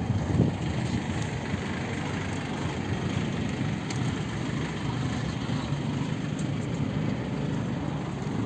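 GAZ A64R42 minibus engine idling steadily while standing at the stop with its door open, a low, even rumble.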